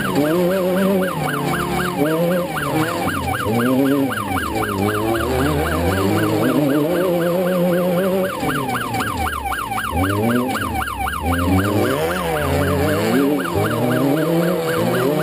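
A rapid warbling siren, rising and falling several times a second, over the engine of an Alumicraft class 10 desert race car revving up and down. The siren is typical of the Sentinel passing alert that a desert racer sounds to ask the car ahead to let it by. The siren drops out briefly about two-thirds of the way through.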